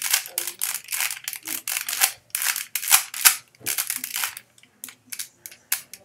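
Plastic 3x3 Rubik's cube being turned quickly in the hands: a dense run of clicking, clacking layer turns for about four seconds, then a few scattered clicks near the end. The turns are a last-layer sequence that lines up the cube's cross edges.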